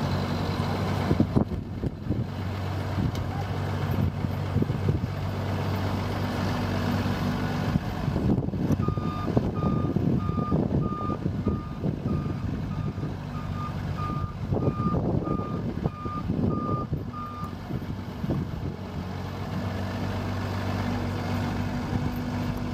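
Broce BB250B road broom's engine running steadily, with a coarse scraping noise through the middle. From about nine seconds in until near eighteen seconds, its backup alarm beeps evenly at one pitch, about one and a half beeps a second, signalling that the machine is reversing.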